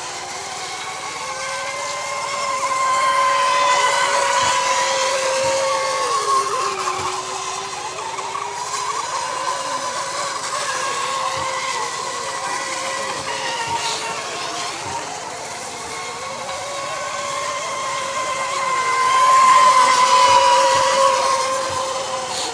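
Several electric Mini Mono RC racing boats running at speed around the course, their motors and propellers making a high, layered whine that shifts in pitch as the boats turn. The whine swells as boats pass closer, about three seconds in and again near the end.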